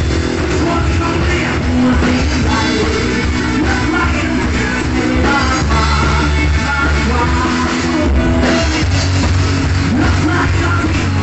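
Live rock band playing loud and steady: drum kit, distorted electric guitars and bass, with a male singer shouting and singing over them.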